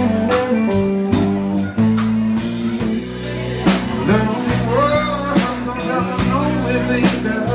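Live band playing amplified: electric bass, electric guitars and a drum kit with regular cymbal strikes.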